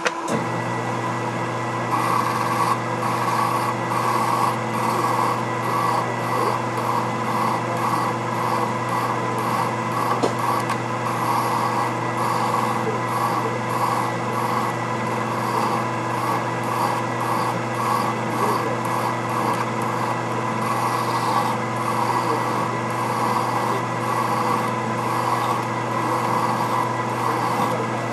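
Hand file rasping against an SM45C steel workpiece spinning in a Boley 8mm watchmaker's lathe, in even repeated strokes that begin about two seconds in. Under it runs the lathe's steady motor hum.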